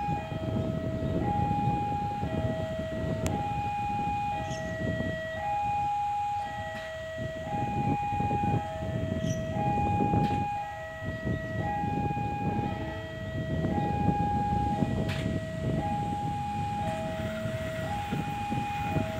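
Railway warning alarm sounding a steady two-tone signal, a higher tone and a lower tone alternating about once a second, the warning that a train is approaching, over a low rumble.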